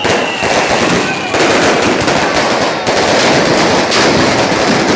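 A string of firecrackers going off in a loud, rapid, nearly unbroken crackle, with short lulls about a second and a half and about three seconds in.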